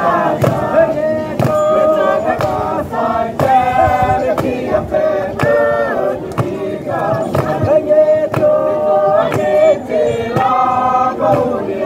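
A choir of several voices singing in harmony, with a steady beat: background music.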